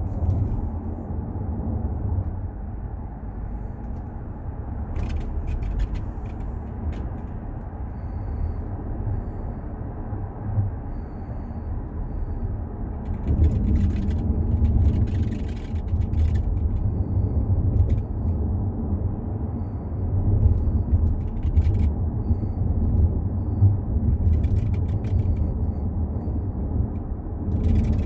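Panoramic glass roof of a Volkswagen Touareg III creaking in short irregular bursts over the steady low road rumble in the cabin while driving, the longest bunch about halfway through. The creak is a fault that appeared at 15,000 km.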